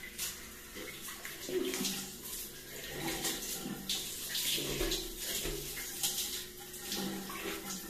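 Shower running, its spray hissing steadily and splashing unevenly as a person washes under it.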